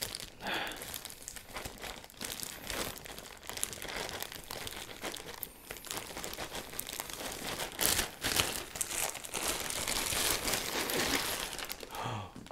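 Thin plastic bag crinkling and rustling as hands work at its knot and pull it open, in many quick crackles, loudest about eight seconds in and again toward the end.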